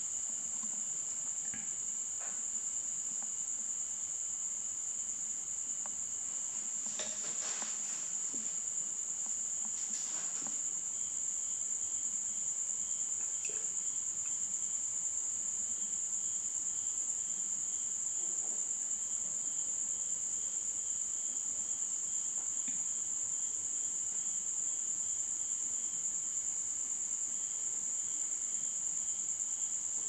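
A steady high-pitched insect trill, with a second, fainter insect pulsing in a regular rhythm from about a third of the way in. A few soft rustles and clicks come from water spinach stems being handled.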